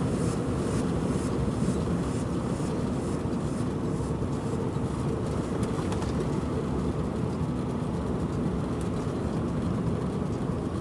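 Heavy truck driving along the highway: a steady engine and road drone.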